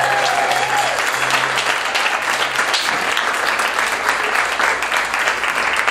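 Audience applauding a live band at the end of a song, with the band's last held low note dying away in the first two or three seconds.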